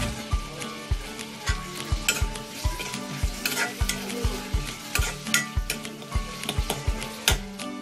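Metal spoon scraping and knocking against a metal wok, about twice a second and unevenly, as a masala of onion, garlic and tomato is stirred. The frying mixture sizzles softly underneath.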